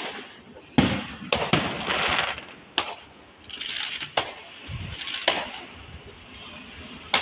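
Fireworks going off: a string of sharp, irregular bangs, about eight, with crackling hiss between some of them.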